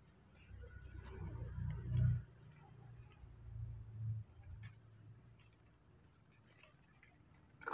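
Low rumble on the microphone, loudest about two seconds in and again around four seconds, over faint rustling and ticks from baby macaques moving about on leaf-strewn ground; a brief squeak right at the end.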